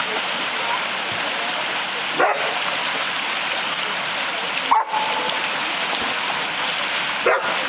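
Steady rush of water pouring over a small weir into a shallow stream, with dogs giving three short, sharp barks about two, five and seven seconds in.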